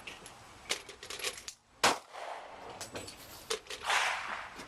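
One loud gunshot about two seconds in, with several fainter sharp cracks and metallic clinks around it.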